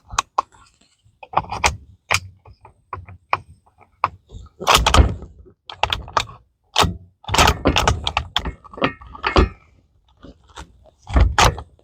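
Irregular metallic clicks, clacks and knocks of a Savage 110 bolt-action rifle being handled: the bolt worked and the magazine fiddled with while rounds are not feeding smoothly.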